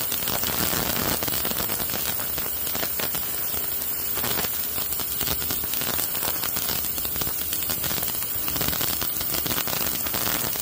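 Parts cleaner running, a steady hiss with a fine crackle and no pauses, as it cleans the reel's dirty parts.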